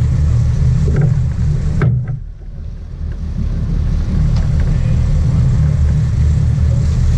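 Sport-fishing boat's engine running steadily with a low, pulsing rumble under the hiss of water and wind along the hull. The sound drops away briefly about two seconds in, then comes back.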